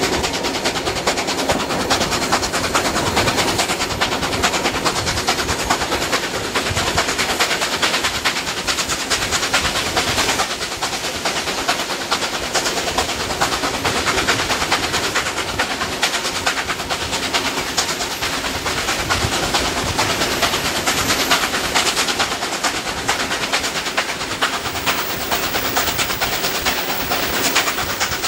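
Steam locomotive 3801 hauling its train, heard from an open carriage window: a loud, steady rush of exhaust, wheel-on-rail noise and wind, with a fast, even rhythm running through it.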